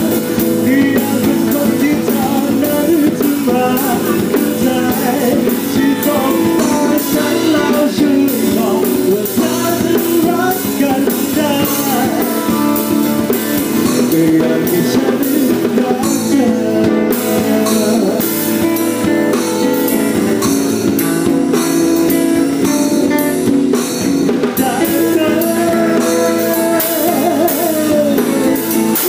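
Live band playing a song: guitar and drum kit with a singing voice, at a steady loud level.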